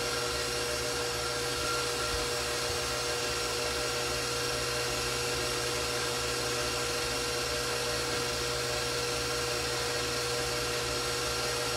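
Electric stand mixer running steadily at a high speed, a constant motor whine with no change in pitch, as it whips a homemade marshmallow mixture.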